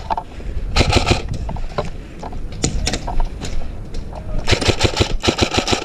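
Airsoft guns firing three short full-auto bursts of rapid clicks, about a second in and twice near the end, with scattered single shots in between.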